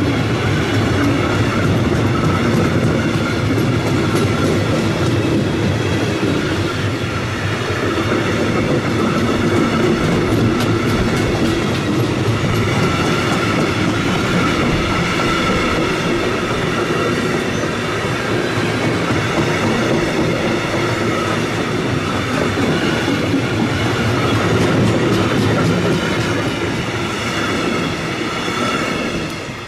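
Container freight train's wagons rolling past close by: a steady, loud noise of wheels on rail with a faint high ringing tone over it. The last wagon passes near the end and the noise drops away quickly.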